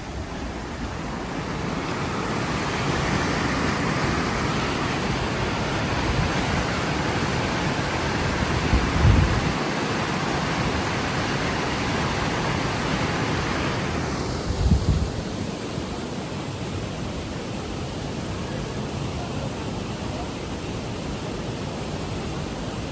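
Steady rushing of a large waterfall and the river below it, swelling over the first few seconds and dropping off fairly suddenly about fourteen seconds in. Two brief low thumps, about nine and fifteen seconds in.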